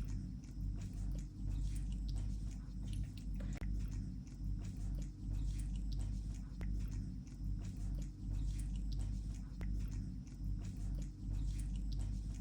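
A cat eating wet food gravy, lapping and chewing with many small wet clicks, over a steady low rumble.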